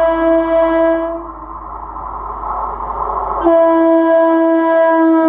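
Indian Railways EMU local train sounding its horn: a steady blast that ends about a second in, then the train's running noise, then a second horn blast from about three and a half seconds in.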